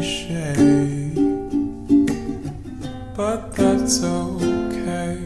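Ukulele playing the instrumental ending of a gentle pop song.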